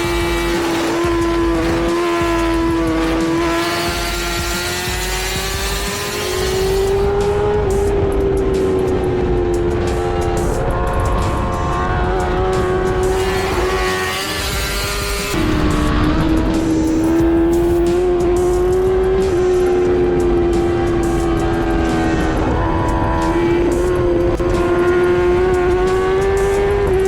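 Motorcycle engine running at high, near-steady revs: one continuous high engine note that wavers a little, jumps up briefly about seven seconds in and drops in pitch about fifteen seconds in before slowly climbing again.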